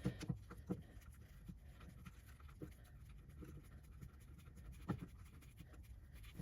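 Faint, scattered light clicks and scraping of small metal parts being handled, as valve-body bolts are threaded in by hand, over a low steady hum; the clearest click comes about five seconds in.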